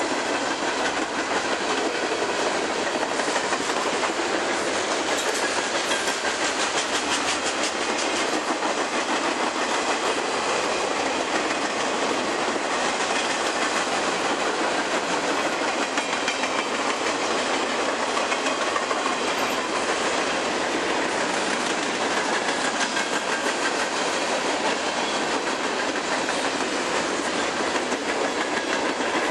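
Freight train boxcars and tank cars rolling past at steady speed: a continuous rumble and rattle of the cars with the clickety-clack of steel wheels over the rail joints.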